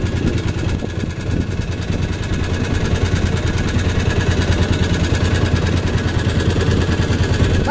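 Small fishing boat's engine running steadily at low speed, a constant low chugging drone.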